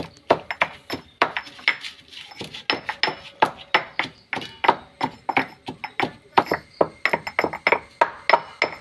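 Repeated pounding strikes crushing roasted dried red chillies into a coarse powder, about three strikes a second and a little quicker near the end.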